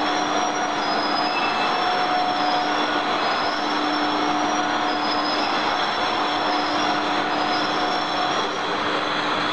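Steady factory machinery noise: a continuous whirring with a constant hum and a high-pitched whine.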